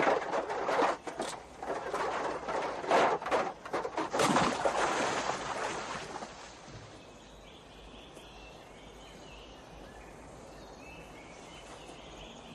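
A heavy bundle crashing and tumbling down a rocky slope, then hitting the river with a big splash about four seconds in. After that, quiet riverside ambience with faint bird and insect chirps.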